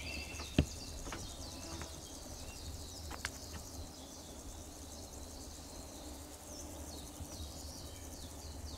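Faint woodland birdsong: quick high chirps that slide downward, repeated over and over, above a low rumble of handling noise. There are a few short sharp clicks, about half a second in and again about three seconds in.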